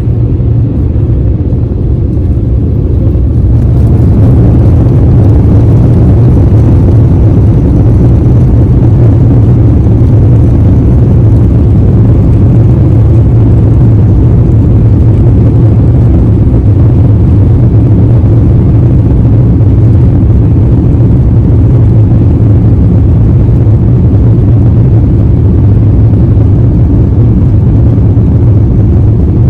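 Jet airliner heard from inside the cabin at takeoff: a loud, low rumble of engines and rolling wheels that swells over the first four seconds as thrust builds, then holds steady.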